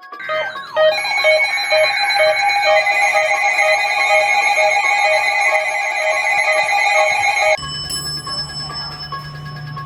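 Electronic alarm tones: several steady high tones stacked over a beep that pulses about twice a second, loud, cutting abruptly to a quieter, different steady tone about seven and a half seconds in.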